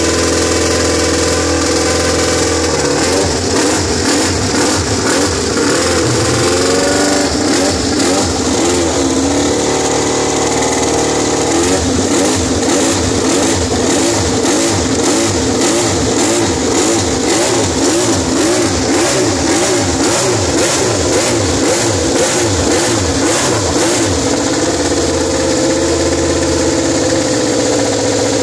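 Ducati Desmosedici MotoGP V4 racing engine running on the stand, its throttle blipped again and again in quick rising-and-falling revs, fastest through the middle, then settling back to a steady high idle near the end.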